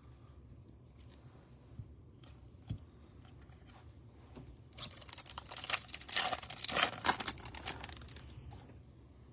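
A foil trading-card pack wrapper being torn open and crinkled, with a couple of light clicks first and the loudest tearing and crinkling from about halfway through to near the end.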